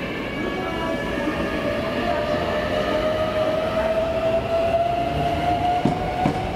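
Hankyu 8300-series electric train running, its traction motors giving a steady whine that rises slowly in pitch as the train gathers speed. A few sharp wheel clicks come near the end.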